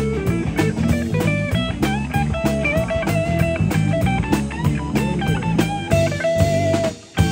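Live rock band: a Les Paul-style electric guitar plays a lead solo with bent, wavering notes over electric bass and drum kit. Near the end everything drops out for a moment, then comes back in on a hit.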